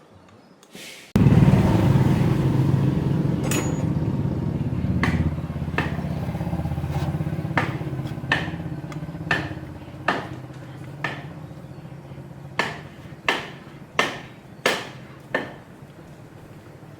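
An engine starts abruptly and runs steadily, slowly growing quieter, while a hammer strikes metal again and again, about one blow every 0.7 s in the second half.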